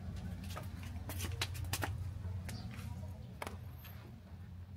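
Indoor room ambience: a steady low hum, with a scattering of sharp, irregular clicks and taps between about half a second and three and a half seconds in.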